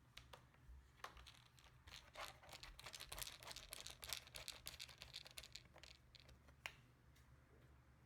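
Faint clicking and scratching of a small precision screwdriver and tiny screws being worked into a laptop's plastic screen bezel, a busy run of small ticks and scrapes with one sharper click near the end.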